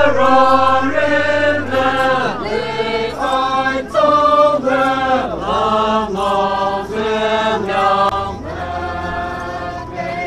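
A group of Naga dancers chanting together in unison, a rhythmic folk chant of short repeated phrases that rise and fall, with a longer held note near the end.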